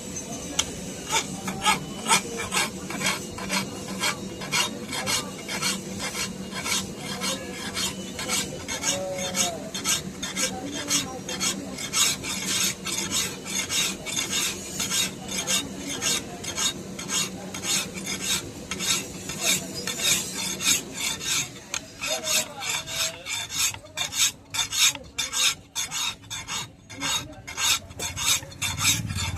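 A hand file rasping along a steel knife blade in quick, rhythmic back-and-forth strokes to sharpen the edge.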